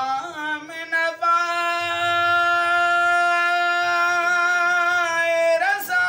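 A man singing a devotional naat unaccompanied. A few short ornamented notes lead into one long held note of about four seconds, and a new phrase starts near the end.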